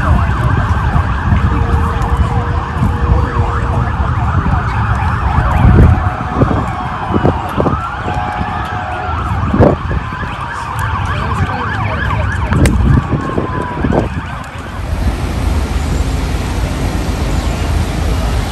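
Emergency vehicle sirens wailing, rising and falling in pitch, over a low, gusty rumble of wind on the microphone. About fifteen seconds in, the sound cuts to a steady hiss.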